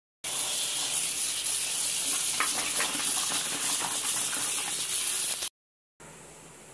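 Kitchen tap running into a plastic bowl of ivy gourds while hands swish and rub them clean, with a few light knocks of the gourds against the bowl. The water cuts off suddenly near the end, leaving only a faint steady hiss.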